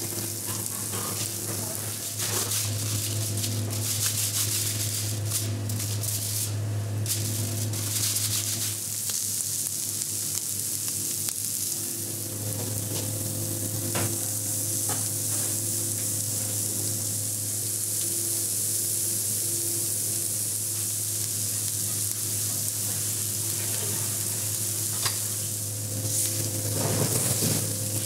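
Raw minced meat sizzling as it is laid on the hot grate of a charcoal grill: a steady hiss, with a low steady hum underneath and a couple of light knocks.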